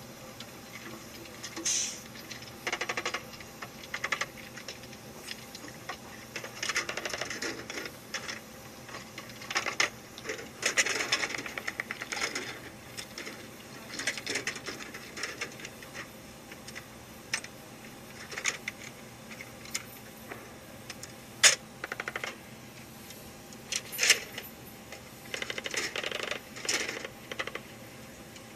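Irregular metallic clicks and clattering of an MK-19 automatic grenade launcher being loaded by hand: a belt of linked 40 mm grenades drawn from its ammo can into the feed and the receiver handled. The sharpest click comes about three-quarters of the way through.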